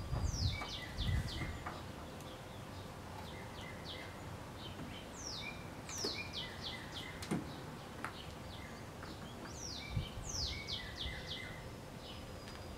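A songbird singing, three phrases of quick downslurred chirps about four seconds apart, with a few low thuds from a plastic taillight housing being pressed into a car body.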